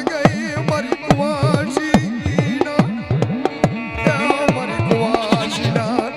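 Devotional folk music without words: a hand drum played in quick strokes whose deep tone bends up and down in pitch, under a wavering sustained melody.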